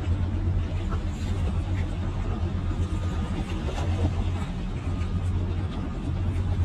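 An engine running steadily at constant speed, with a low, even hum.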